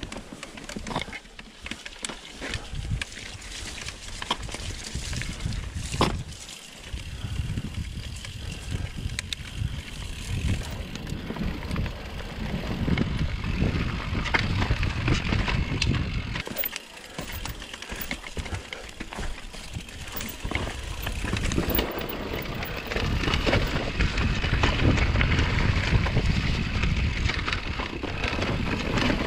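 Mountain bike riding down a rough dirt singletrack: knobby tyres rolling over dirt, roots and rocks, with the bike rattling and an uneven rumble that swells and dips, and occasional sharp knocks.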